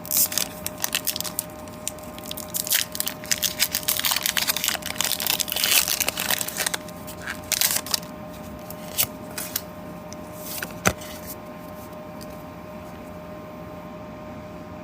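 Foil wrapper of a Pokémon TCG booster pack being torn open and crinkled in the hands, a dense crackling for about eight seconds. It then thins out to a few light handling clicks.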